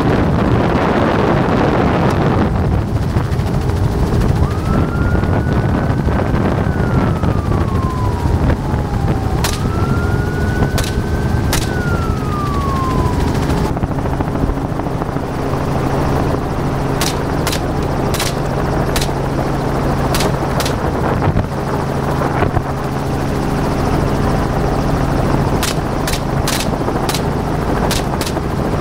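Helicopter cabin noise: the steady drone of the rotor and engine. Two siren-like tones each rise and then slowly fall, about five and ten seconds in, and a run of sharp clicks comes through the second half.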